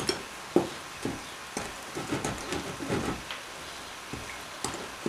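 Wire whisk beating thick muffin batter by hand in a glass bowl: irregular wet stirring strokes, about two a second, with light ticks of the whisk against the glass.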